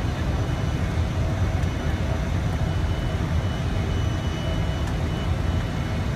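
Steady low rumble of an airliner's engines and airflow heard from inside the aircraft, with a faint steady high whine over it.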